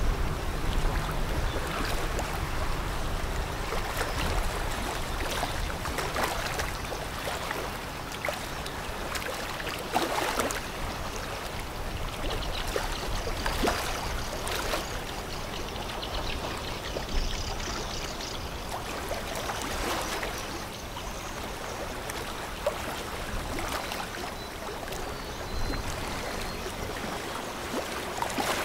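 Ship's wake water sloshing and splashing along a riverbank in irregular surges, with a low rumble that fades over the first few seconds.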